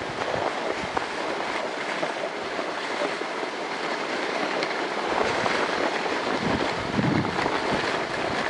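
Sled runners scraping steadily over packed snow on a fast downhill run, with wind buffeting the microphone in gusts in the second half.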